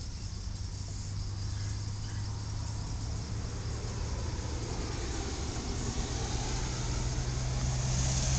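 Steady low hum under a wash of background noise that slowly grows louder toward the end.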